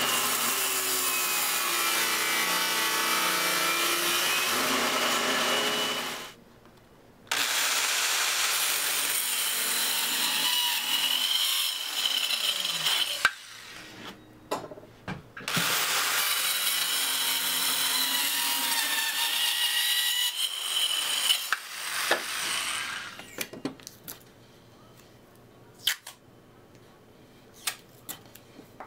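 Power saw cutting wood in three runs of about six seconds each, with short pauses between, followed by scattered knocks and clatter near the end.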